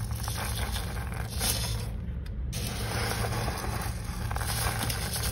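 Plastic litter scoop digging and scraping through pellet cat litter, the pellets rustling and grating against the scoop and the plastic box, with a brief lull about two seconds in.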